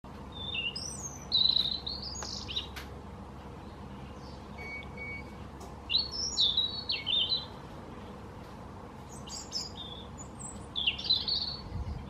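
European robin singing: three short phrases of high, thin warbling notes, each lasting one to two and a half seconds, separated by pauses.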